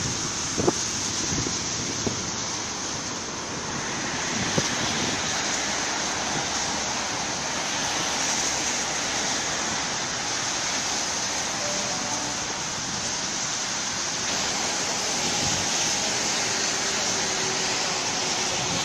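Steady rushing noise of rain and wind on an open station platform, with a few faint knocks in the first few seconds.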